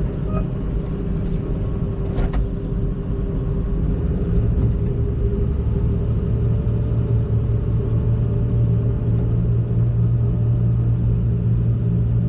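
Excavator's diesel engine running steadily, with a constant drone whose low hum grows heavier about four seconds in.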